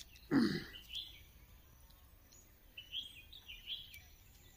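Small birds chirping in short high calls, a few at a time. About half a second in, a man makes one brief voiced sound, the loudest thing here.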